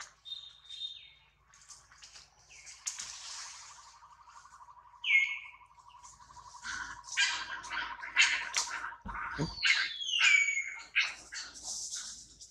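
High-pitched animal calls: short chirps and squeaks, some falling in pitch, over a steady pulsing trill that runs for several seconds and stops about ten seconds in.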